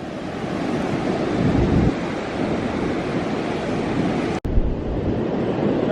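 Strong wind buffeting the microphone over the rush of surf. The sound breaks off for an instant about four and a half seconds in, then goes on.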